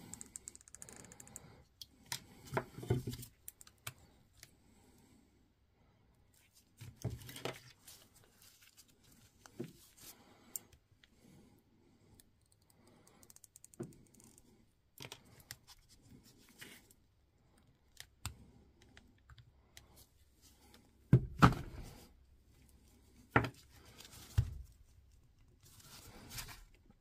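Scattered handling sounds from bench work on a cordless-tool battery pack: small clicks, taps and rustles, with a few louder knocks in the last third.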